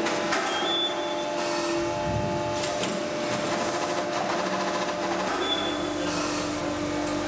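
Factory machinery running with a steady hum of several held tones, with a few faint clicks over it.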